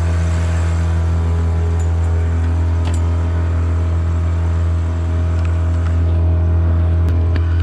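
A sailboat's auxiliary engine running at a steady speed while the boat motors with its mainsail down: a constant low hum with no change in pitch.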